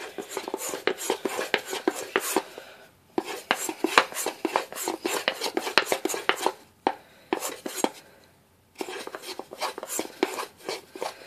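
Dovo straight razor being stropped on the green-pasted side of a balsa strop: a quick run of light strokes and clicks. The strokes pause briefly about three seconds in, and again for about two seconds in the second half.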